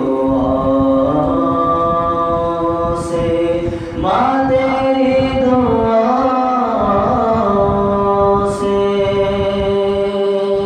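Male voice singing an unaccompanied nasheed in long, drawn-out held notes: one phrase holds until about four seconds in, then a new phrase rises and is sustained until near the end.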